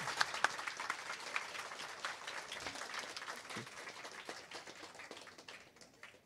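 Audience applauding, the clapping gradually fading away.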